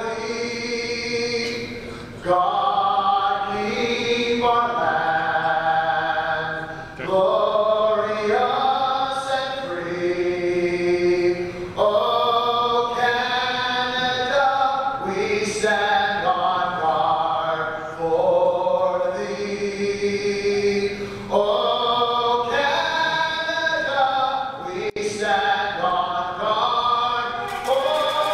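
Singing over an arena's sound system, a melody of long held notes with short breaks between phrases. A crowd starts cheering near the end.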